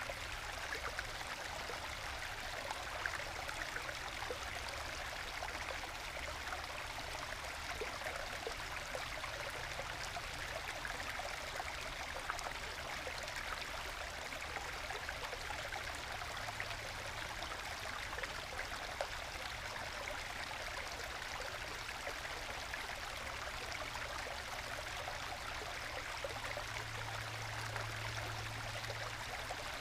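Small forest stream babbling steadily over low bedrock waterfalls into small plunge pools, a soft even rush of water flecked with gurgles and trickles.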